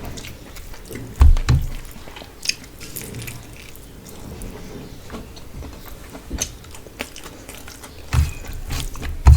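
A person chewing and biting food close to the microphone, with wet mouth sounds and small clicks. The food is rice with fish curry and cauliflower fry. Heavier low thumps from bites come about a second in and again near the end.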